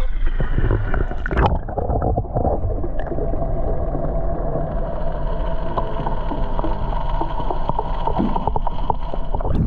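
Camera going underwater in the sea: sloshing water, then about a second and a half in the sound turns muffled, with gurgling and a steady droning hum heard through the water.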